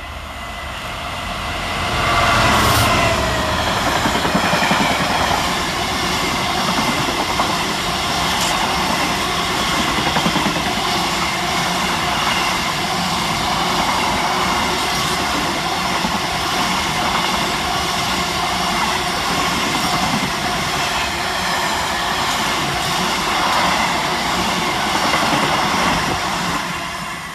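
Class 66 diesel locomotive, its two-stroke EMD V12 engine working hard up the gradient, approaching and passing about two to three seconds in with a falling pitch. A long train of empty container flat wagons then runs past with steady wheel-on-rail noise, which drops away near the end.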